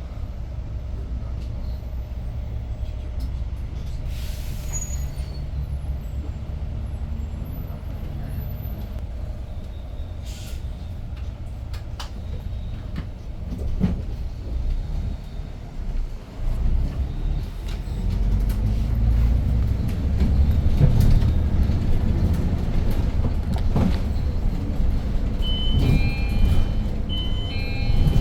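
Cabin sound of a Hyundai New Super Aerocity city bus under way, its C6AF Q290 CNG engine and road noise running as a steady low rumble. It dips about sixteen seconds in, then grows louder as the bus accelerates again. A brief hiss comes a few seconds in, and a few short high beeps near the end.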